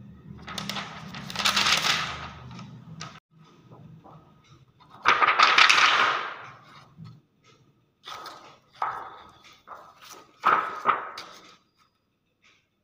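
Clear polyester film sheets crinkling and rustling as a gloved hand handles and flexes them, in about four bursts, the loudest a little before the middle.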